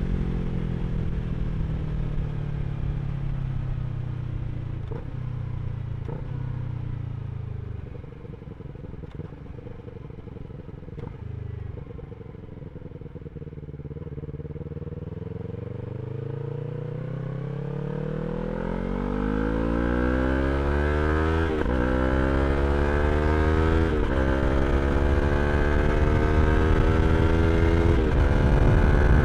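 2023 Yamaha R3's 321 cc parallel-twin engine through an Akrapovič slip-on exhaust: the engine note falls as the bike slows, sits low and quieter for several seconds, then climbs again as it accelerates, with three upshifts that each drop the pitch before it rises again.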